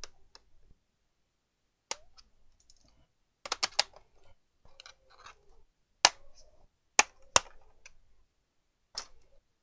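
Irregular sharp clicks and light knocks of hard objects being handled and set down, with a quick run of several a little before the middle and single ones spread through the rest.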